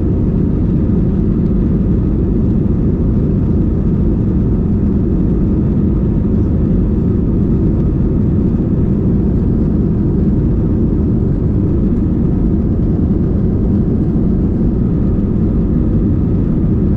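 Steady low rumble of jet engines and rushing air heard inside an Airbus A321ceo passenger cabin in flight.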